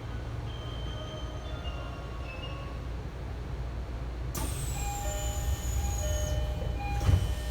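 Departure melody playing faintly, then about four seconds in the Tokyo Metro 10000 series door chime starts sounding its alternating two notes as the doors close, with a high falling whine. The doors shut with a thump near the end.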